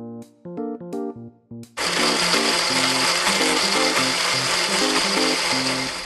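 A light plinking tune. About two seconds in, a blender motor whir starts suddenly, runs steadily over the tune and stops near the end.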